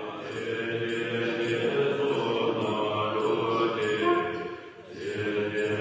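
Group of Tibetan Buddhist monks chanting a long-life ritual together in deep, steady voices, with a brief break near the end before the chant resumes.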